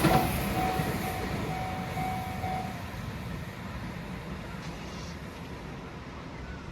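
A Shin-Keisei Line electric train passing the level crossing and moving away, its rumble fading steadily. The crossing alarm's repeated tone keeps ringing for about the first three seconds, then stops.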